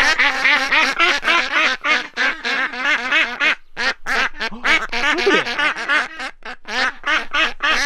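Domestic ducks quacking rapidly and without let-up, several calls overlapping, with a brief pause a little before halfway.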